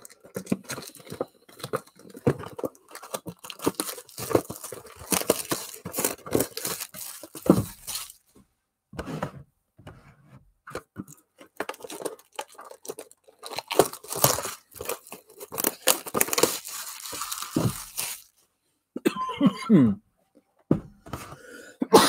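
Panini Prizm trading-card mega boxes being torn open: repeated bursts of tearing and crinkling of shrink-wrap and cardboard, in two long stretches with a quieter pause between.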